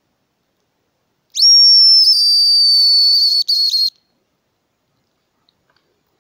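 Homemade hazel grouse call whistled in imitation of the hen: one high, thin whistle that rises sharply at the start, is held for about two and a half seconds with a slight downward drift, and breaks into a few short pieces at the end.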